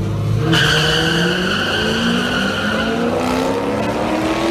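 Two cars, one a C5 Corvette, launching off the line at a drag strip, their engines pulling hard, with the engine note climbing steadily in pitch as they accelerate away.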